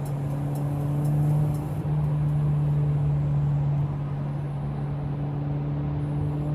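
Honda Civic FB7's LPG-converted four-cylinder engine and aftermarket Abarth exhaust droning steadily inside the cabin while cruising at about 90 km/h, over road noise.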